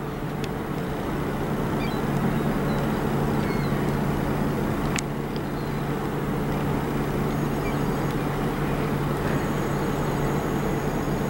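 Steady low hum of the cruise ship MS Eurodam's machinery and propulsion as the ship begins to move off the quay, its thrusters churning the water alongside the hull. The hum swells a little about two seconds in and then holds steady.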